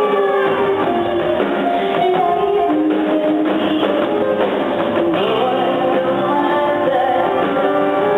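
Live rock band music played in a concert hall and heard from the balcony, with a female singer.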